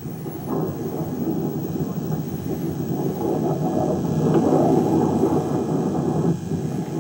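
Wind buffeting a camcorder microphone on an exposed mountain summit, heard played back through a television speaker as a dense, low rushing noise. It grows gradually louder as the TV volume is turned up.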